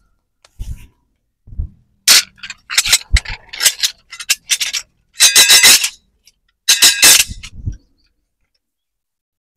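A couple of soft thumps, then a massager's carrier of glass oil bottles shaken in a string of sharp clinking, jingling bursts with a bright ring, the loudest about halfway through.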